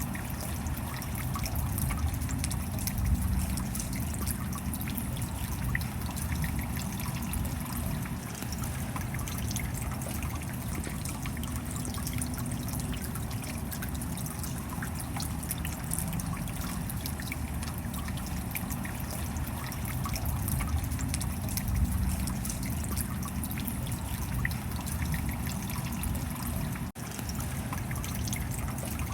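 Steady rain: a continuous wash of water noise with many small drop ticks scattered through it. It cuts out for a split second near the end.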